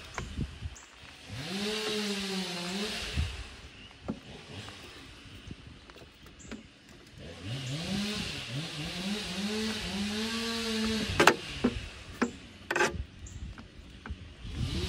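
Electric trolling motor, just hooked to a new battery, spun up twice with its propeller in the air: a whirring whine that rises, wavers and falls, the second run longer. A few sharp clicks near the end.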